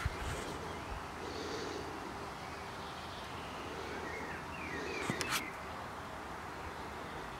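Outdoor garden ambience: a steady background hiss with a few short bird chirps about two-thirds of the way through, and a quick run of sharp clicks right after them.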